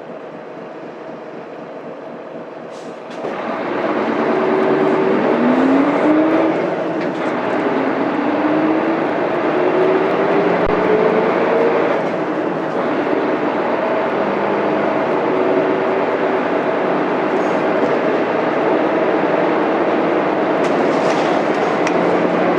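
Mitsubishi Fuso Aerostar bus's 6M70 six-cylinder diesel, heard from inside the bus. About three seconds in it grows louder and the engine pitch climbs several times, with brief breaks between the climbs as the manual gearbox is shifted up through the gears. It then runs on steadily.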